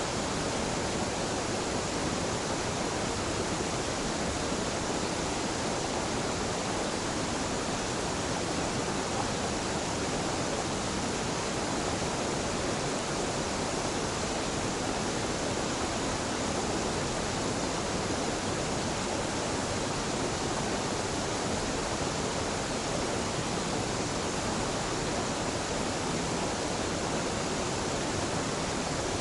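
River waterfall, water falling and rushing steadily without a break.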